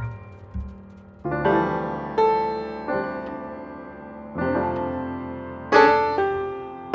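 Soft piano music playing a slow series of struck chords that ring and fade.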